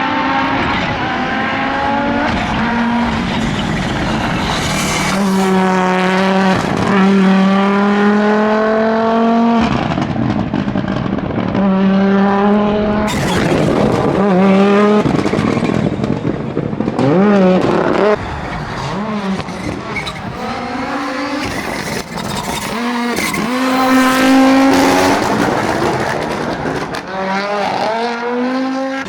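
Audi Quattro S1 rally car engine driven hard on a special stage: the pitch climbs through each gear and drops at the shifts, several times, with lifts and wavering revs for corners around the middle.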